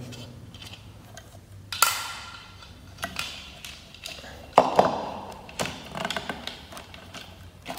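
Hard plastic ceiling-fan covers knocking and clicking together as the upper cone cover is slid down the downrod onto the lower cover: several separate sharp knocks and taps, the loudest a little past halfway.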